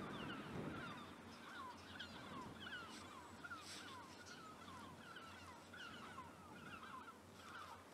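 A flock of birds calling, faint: many short, downward-sliding calls overlapping several times a second, with no let-up.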